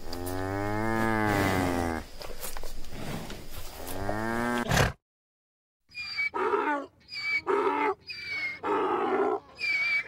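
A cow gives one long moo that rises and then falls in pitch. After a brief silence, about six seconds in, a donkey brays in a string of short calls.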